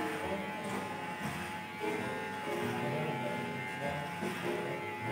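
Electric hair clippers buzzing steadily during a haircut.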